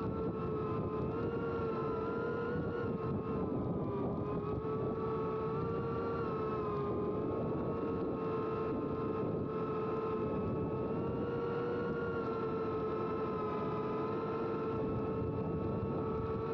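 Cinewhoop FPV drone's brushless motors and propellers whining steadily in flight, the pitch wavering slightly as the throttle changes.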